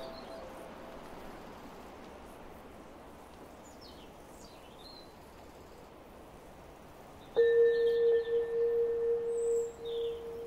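Ambient music over quiet outdoor birdsong: a held synth note fades out at the start, and about seven seconds in a new steady tone comes in suddenly and sustains. In between, birds chirp briefly a few times against a soft background hiss.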